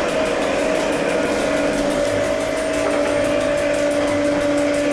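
Electric railcar of the Mürren–Grütschalp mountain railway running downhill, heard from inside its cab: a steady two-note motor and gear whine over a constant wheel-and-rail hiss.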